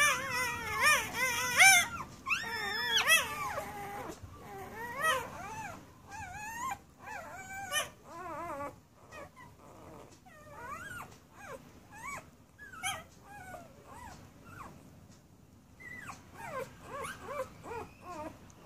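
Newborn Irish setter puppies whimpering and squealing with wavering, high-pitched cries. The cries are long and loudest in the first few seconds, then break into shorter, fainter squeaks with brief pauses.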